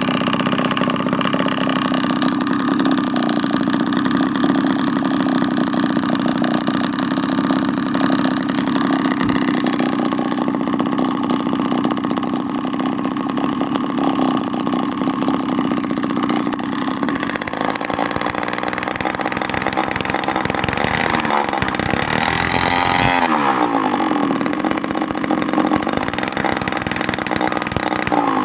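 Homemade mini two-stroke engine built from a refrigerator compressor, running with an expansion-chamber exhaust made of rubber radiator hose. It runs steadily, then is revved: about three-quarters in, its pitch sweeps down and back up.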